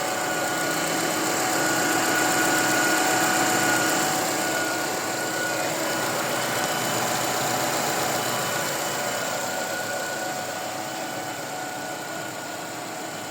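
Renault K4M 1.6 16-valve four-cylinder petrol engine idling steadily, with a thin steady whine over the running, just after its timing belt and water pump have been replaced.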